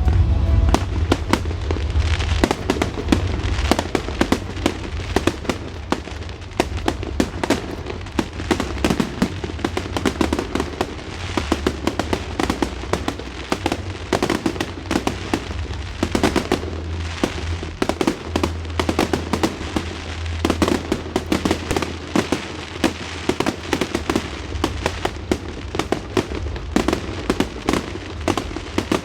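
Aerial fireworks going off in a dense, continuous barrage of sharp cracks and pops, several a second and irregular.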